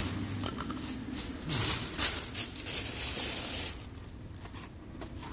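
Irregular rustling and scraping handling noise, a few soft scrapes close together, growing quieter for the last second and a half.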